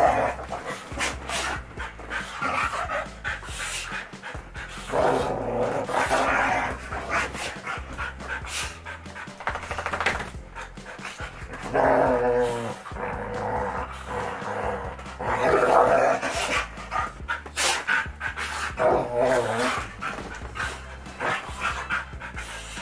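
Two dogs play-fighting, vocalising in several bursts with panting and barks in between.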